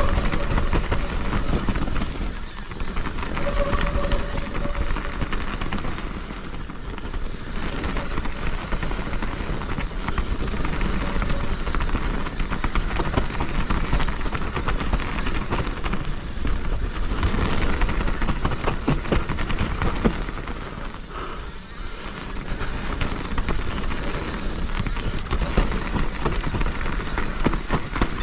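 Mountain bike riding fast down a dirt downhill trail: a constant rush of tyre and wind noise with the bike rattling over the rough ground. A short high squeal sounds near the start and again about four seconds in.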